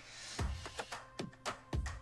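Background music: a sparse drum beat of deep kick-drum thuds and short sharp hits.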